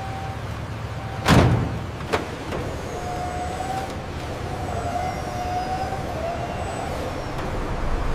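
Factory machinery running steadily, with one loud bang about a second in and a sharper knock just after, then a faint wavering whine.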